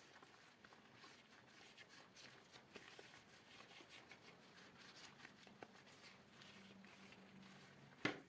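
Faint cloth wiping and rubbing on desk items, a run of soft, short scratchy strokes, with one sharp knock just before the end.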